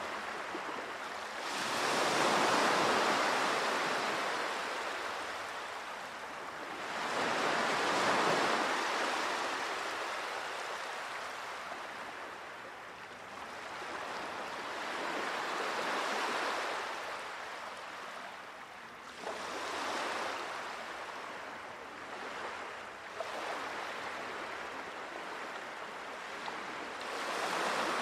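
Sea waves washing onto the shore, swelling and fading in slow surges every few seconds.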